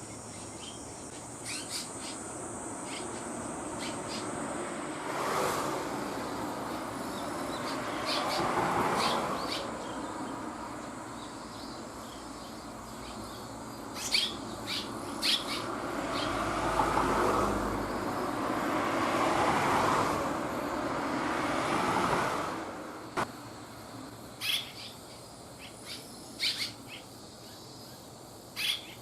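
Short, high chirps of red-rumped swallows, some single and some in quick clusters, over the sound of road traffic. Vehicles pass twice, the longer pass in the middle.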